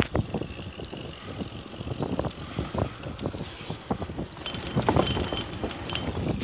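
Wind buffeting the microphone over the rumble of bicycle tyres rolling on an asphalt path, with many small knocks and rattles from the moving bike.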